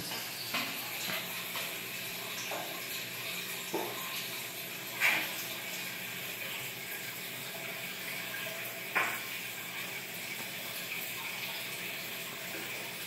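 Steady aquarium water noise from a bubble curtain of air rising in the tank and the filter's flow, with a low hum underneath. A few short louder sounds stand out, the loudest about five seconds in.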